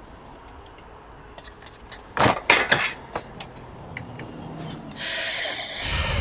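A few light metallic clinks as the metal flashing is handled. About five seconds in, a cordless drill-driver starts running steadily, driving a screw into the roof window's metal flashing frame.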